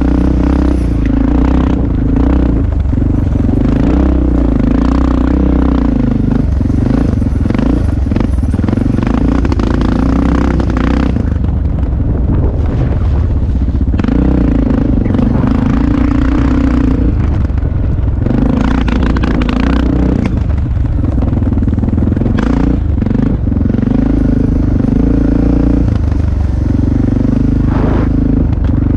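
Dirt bike engine being ridden hard off-road, its pitch climbing and falling again and again as the throttle is worked. It eases off briefly about halfway through.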